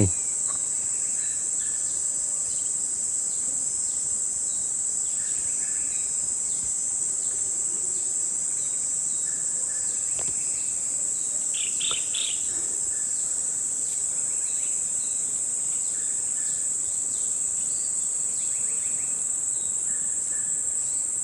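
Steady high-pitched drone of insects in the forest, with faint short chirps scattered through it and one brief, brighter call about twelve seconds in.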